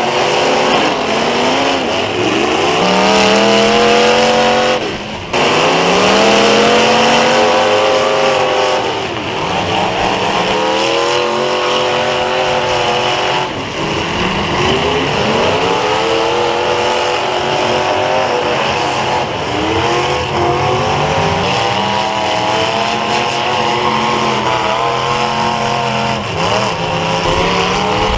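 Several demolition derby cars' engines revving hard over and over, their rises in pitch overlapping one another as the cars ram and push in the mud.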